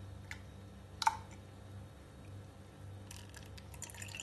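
Blended mint-lemon juice being strained through a stainless steel tea strainer into a glass mug: a few light metal clinks, the sharpest about a second in, then fine crackling ticks near the end.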